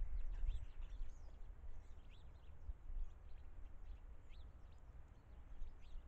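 Many short, faint bird chirps and calls over a low, uneven rumble that is loudest in the first second.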